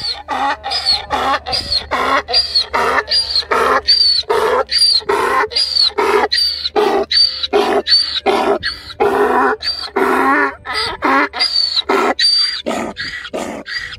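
A donkey braying: a long hee-haw of loud, rasping strokes, about two a second, alternating higher and lower, that stops near the end.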